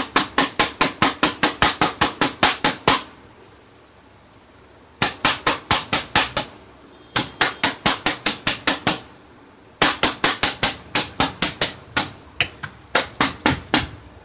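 Rapid tapping on the metal backplate of a Dell laptop keyboard with a small hand tool, about seven sharp strikes a second in four runs with short pauses between. The knocking is meant to shake dust out from under keys that are not working.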